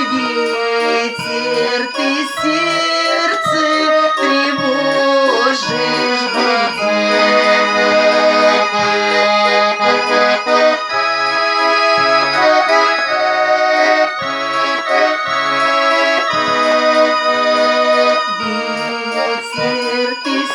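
Garmon (Russian button accordion) playing an instrumental passage: sustained reed chords carrying a melody, with short bass-chord beats repeating underneath.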